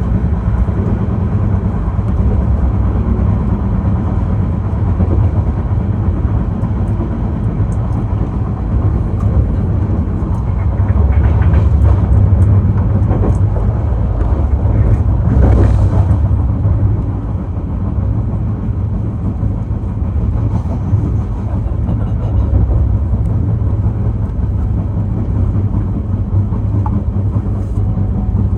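Shatabdi Express train rumbling low and steady as it approaches. The rumble swells to its loudest about halfway through, with a short hissing burst at its peak, then eases off.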